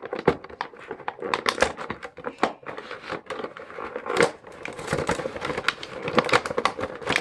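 Plastic packaging crinkling and crackling as an action figure is pulled out of it, with a sharper snap about four seconds in.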